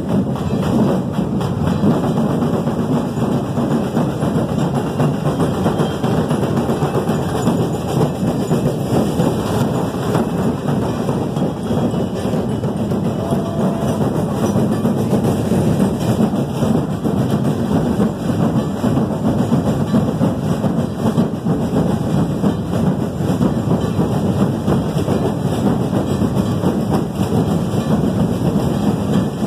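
Loud, steady din of a large packed festival crowd, with drumming mixed in.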